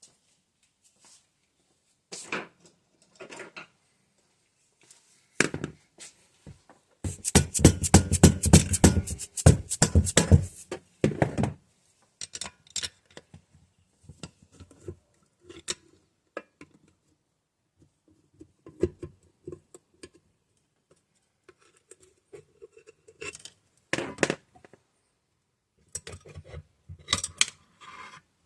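Hand tools and metal engine parts clicking, clinking and knocking during disassembly of a 196cc small engine, with several seconds of loud, rapid, evenly spaced clicking about a quarter of the way in.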